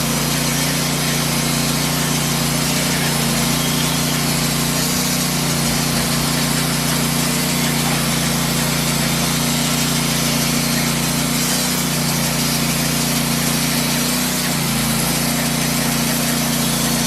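Norwood portable bandsaw mill cutting a spalted pecan log: its gasoline engine runs steadily under load while the band blade saws through the wood with a constant hiss.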